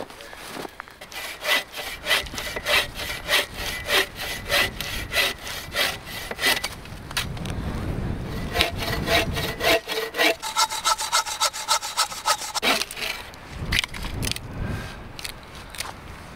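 Bow saw cutting through a log, with quick back-and-forth scraping strokes, two to three a second.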